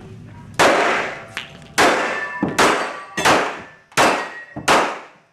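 A run of sharp, loud metallic clangs, six strong ones and a weaker one, about one every 0.7 s, each ringing out briefly. At a handgun match this is the sound of steel targets being struck.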